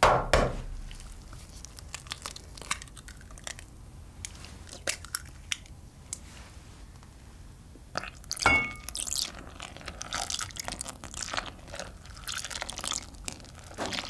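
Eggs cracked on the rim of a glass mixing bowl: a sharp crack at the start, then small clicks of shell. About eight and a half seconds in comes a knock with a brief glassy ring, then milk pouring onto the flour in the bowl with an uneven crackly splashing.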